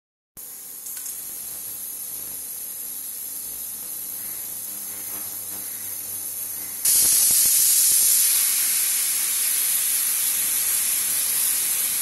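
Prestige pressure cooker whistle: about seven seconds in, steam suddenly starts escaping past the weight valve with a loud, steady hiss that keeps going. This is the sign that the cooker has reached full pressure.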